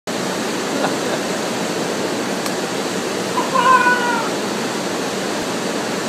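Mountain waterfall pouring into a rocky plunge pool, a steady rush of churning water. About halfway through, a short high call, falling slightly in pitch, rises briefly above it.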